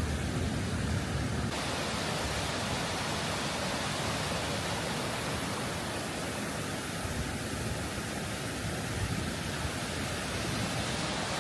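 High Force waterfall: a steady, continuous rush of falling water. About a second and a half in, the deep rumble drops away and the hiss grows brighter.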